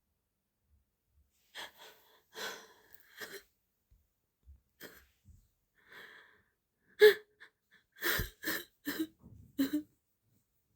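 A young woman crying: sniffles and shaky, breathy intakes, then a quick run of gasping sobs in the last few seconds.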